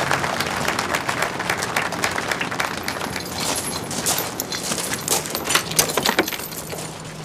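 Crowd applause dying away, then scattered sharp metallic clicks and clinks from keys and fastenings being worked on a metal time capsule.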